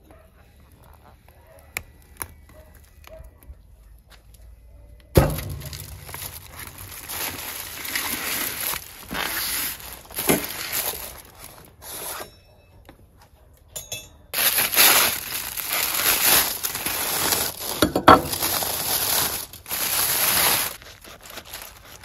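Aluminium foil crinkling and tearing in long, loud stretches as a foil-wrapped roast is unwrapped. Before that, a few faint metal clinks and a sudden thump about five seconds in.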